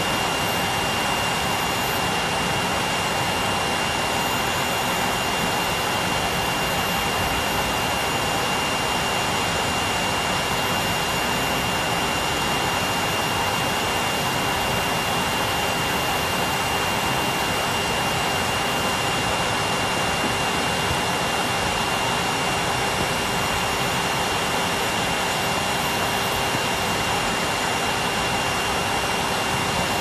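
Henry canister vacuum cleaner running steadily with nothing in its hose inlet: a constant rush of air from its motor with a steady high whine over it.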